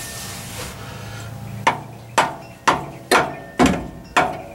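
Hammer blows on an oil filter wrench to break loose a stuck oil filter: sharp strikes about two a second, each with a short ring, starting about a second and a half in.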